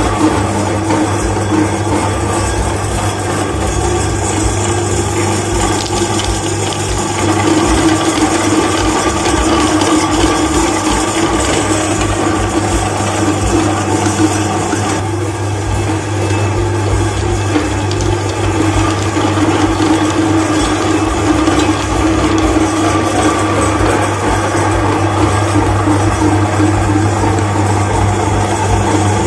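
Electric meat grinder running steadily under load, with an even motor hum, as its auger forces ground chocolate and candy bars out through the grinder plate.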